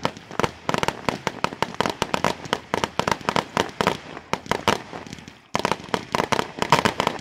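Fireworks display: aerial shells bursting in a rapid, irregular run of sharp bangs, several a second, with a short lull about five seconds in before another dense volley.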